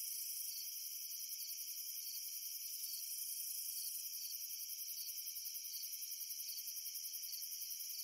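A chorus of crickets chirping: several high-pitched trills layered at different pitches, pulsing fast and evenly.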